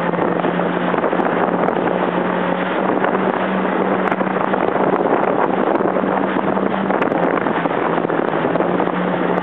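Jet ski engine running at a steady speed, an even drone, under a loud rush of wind over the microphone.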